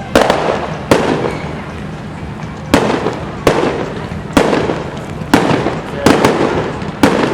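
Fireworks display: aerial shells bursting one after another at uneven intervals, about ten sharp bangs, each trailed by a fading echo.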